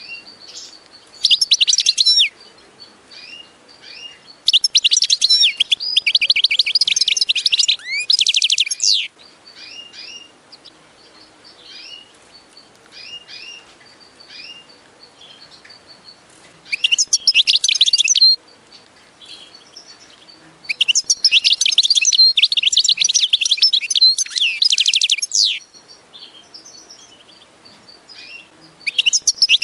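A small songbird singing in loud, rapid, high-pitched trilling phrases lasting one to five seconds. Five such phrases come through, with scattered single chirps in the gaps between them.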